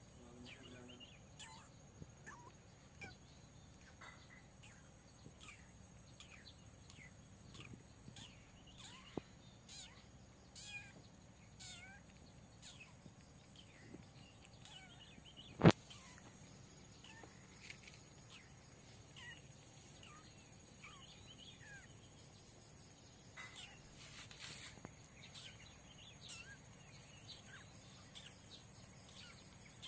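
Outdoor ambience of small birds chirping in short, falling calls, over a steady high-pitched drone of insects. A single sharp click about halfway through is the loudest sound.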